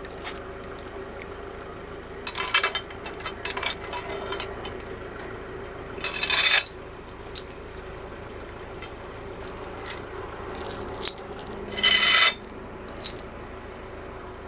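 Metal parts and tools being handled and set down during an engine teardown: irregular clinks and short clattering bursts, loudest about six seconds in and again near the end, over a steady faint hum.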